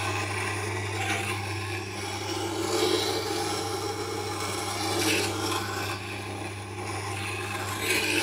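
Tormek water-cooled grindstone grinding the long curved bevel of a French curved scraper: steel scraping on the turning stone, swelling every couple of seconds as the handle is swung round, over the steady hum of the machine's motor.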